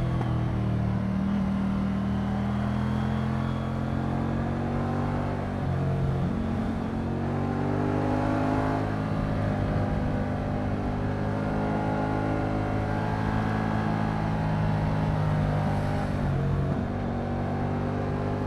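Moto Guzzi V100 Mandello's liquid-cooled transverse V-twin running under way. Its pitch holds steady, dips about six seconds in and then climbs again as it accelerates, and dips once more near the end.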